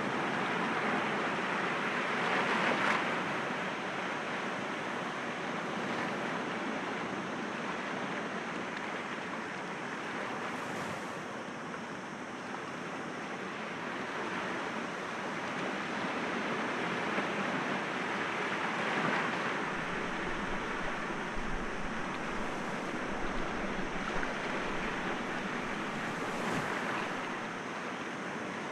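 Sea waves breaking gently against rocks, a continuous wash that swells a few times: about two seconds in, about two-thirds of the way through, and near the end.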